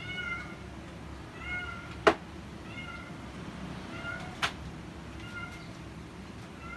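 Short, high calls from a small animal, repeated about every second and a half, with two sharp clicks, the louder about two seconds in.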